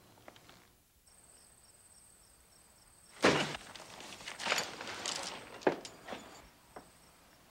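Faint steady cricket chirping, broken about three seconds in by a sudden loud clatter, then rustling movement and a few sharp light knocks for about three seconds.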